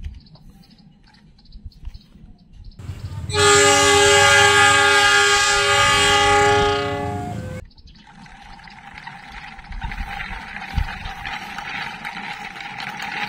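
Train horn sounding one long, steady blast of several notes together for about four seconds, the departure signal. A steady rolling hiss with a faint hum follows as the model train moves off.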